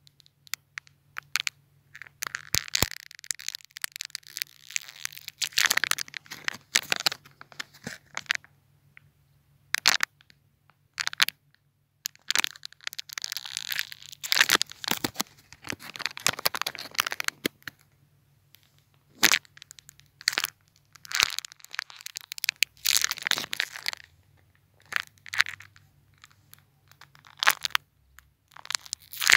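Ice cracking: irregular sharp snaps and bursts of crackling that run a second or two at a time, broken by brief quiet gaps.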